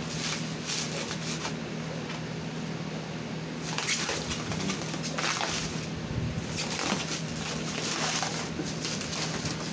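Clear plastic stretch wrap crinkling and rustling in uneven crackles as hands pull it off flat-packed plywood panels, busier and louder from about four seconds in.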